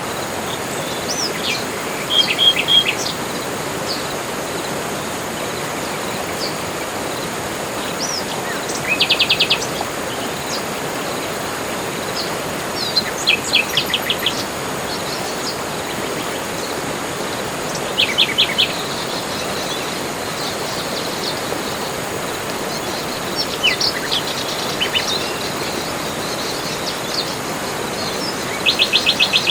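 Forest birds singing over a steady rushing background: short, rapid, high trills recur about five times, with scattered single chirps and whistles between them.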